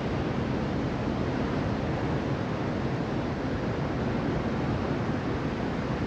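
Sea surf breaking and washing up a sandy beach: a steady, continuous wash of waves with no separate crashes standing out.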